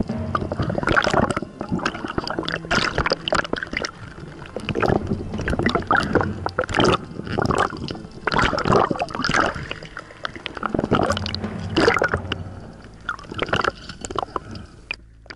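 Underwater sloshing and gurgling heard through an action camera's waterproof housing, in irregular surges about once a second, as water moves around the camera while a speared fish is handled.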